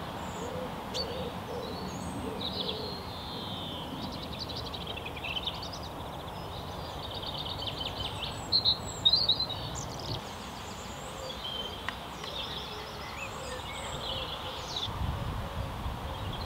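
Several songbirds singing and chirping over a steady low background rumble, with a brief louder burst of chirps about nine seconds in.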